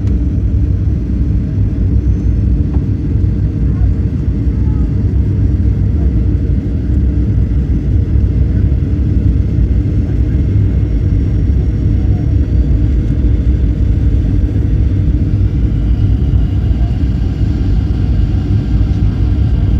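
Passenger airliner heard from inside the cabin: a steady, even low rumble.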